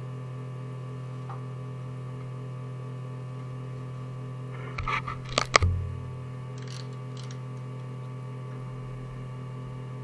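Home-built 3D printer humming steadily. About five seconds in there is a short cluster of clicks and a sharp knock.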